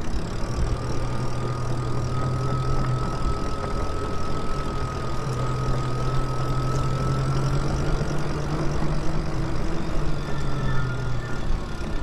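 Electric bike motor humming at a steady pitch under way, with a thin higher whine over it that fades about eight seconds in, and wind rumble on the microphone.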